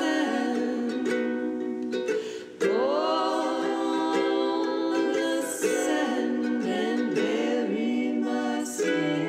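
Background music featuring a plucked ukulele.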